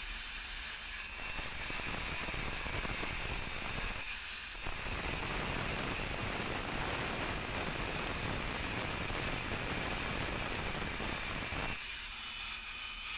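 Handheld angle grinder scoring a groove dry into a stone tile: a steady grinding noise over the motor's high whine. The cutting noise breaks off briefly about four seconds in and again about a second before the end, leaving the motor whining on its own.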